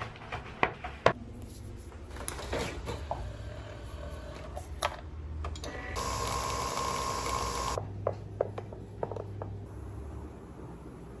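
Handheld milk frother spinning in a mug, a steady whirring whine that starts about six seconds in and cuts off after nearly two seconds. Light knocks and clinks of kitchenware come before and after it.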